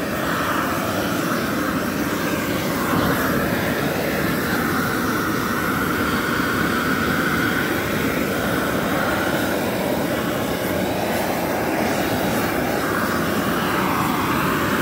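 Propane shrink-wrap heat gun burning steadily, a continuous rushing flame noise, as its flame heats the plastic shrink bag's cuff at the base of a pallet to shrink it.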